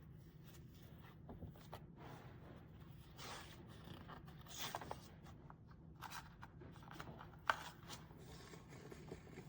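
Faint handling noises, rustling and scraping, over a low steady hum, with one sharp click about seven and a half seconds in.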